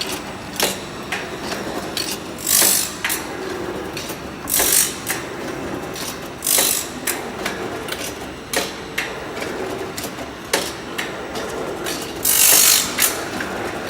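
SH-F2004A automatic two-sided saw-blade tooth grinding machine running its cycle: a short grinding hiss about every two seconds as the wheel passes a tooth, with mechanical clicks of the feed mechanism in between.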